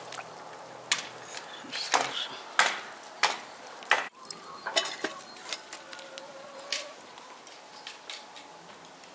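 A hand stirring water in a metal pot, then burning charcoal crackling in a clay brazier: a run of irregular sharp clicks and crackles, about a dozen, over a faint hiss.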